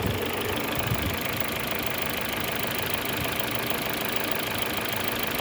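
Car engine idling with a steady, rapid knock running through it, a knock that comes and goes at idle. The owner cannot tell its cause, having recently replaced the valve timing parts and seals.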